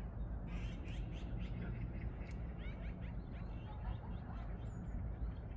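Small birds chirping in a quick, busy chatter from about half a second in, thinning out toward the end, over a steady low rumble.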